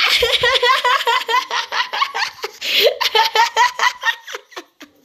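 A high-pitched voice giggling in a long run of quick, repeated laughs, about four or five a second, with a brief held squeal about halfway through: a fit of the giggles.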